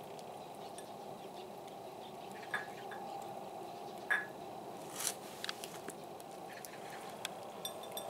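Domestic cat eating chunks of wet food from a ceramic saucer: scattered small wet smacks and clicks of chewing and of food against the dish, the loudest about four and five seconds in, over a steady low hum.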